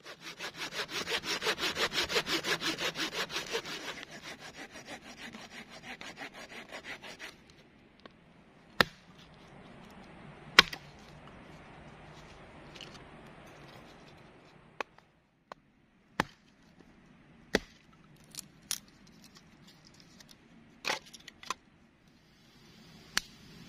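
Folding saw cutting through a log in quick, even back-and-forth strokes, louder for the first four seconds and stopping about seven seconds in. Then about ten sharp wooden knocks, the loudest about ten seconds in, as a hatchet splits wood and split pieces are set down.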